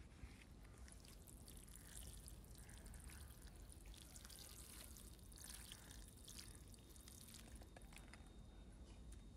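Faint pouring, trickling sound with many fine crackles.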